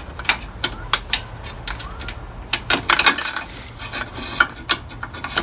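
Rubbing and scraping with scattered sharp clicks, as a strip of double-sided nano (alien) tape is handled and peeled. There is a longer scratchy stretch about halfway through.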